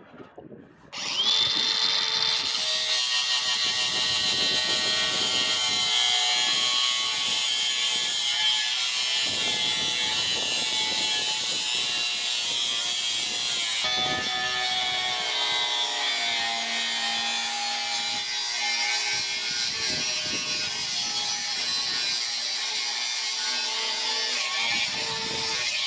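Electric hand grinder starting about a second in, its high whine rising as it spins up, then running steadily against aluminum pipe, with its pitch shifting a little under load.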